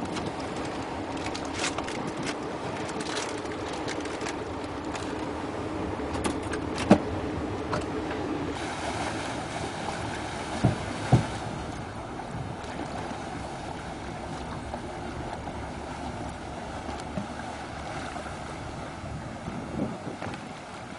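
Motor cruiser's engine running, with water rushing and a few sharp knocks. About eight seconds in, a steady engine hum gives way to a broader rush of engine and propeller-churned water.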